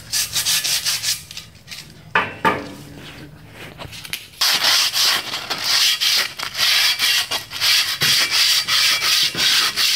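Sandpaper rubbed by hand over a pitted steel drum-brake backing plate, scuffing it so primer will bite. Light scratching at first, then brisk back-and-forth strokes about two a second from about four seconds in.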